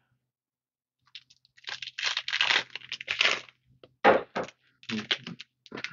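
Foil Magic: The Gathering booster pack wrapper crinkling and crackling as it is handled and torn open, starting about a second in as a run of short crinkly bursts with brief gaps.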